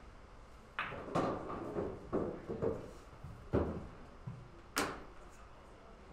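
A loose series of about six knocks and thuds over four seconds, the deepest near the middle and a sharp crack near the end.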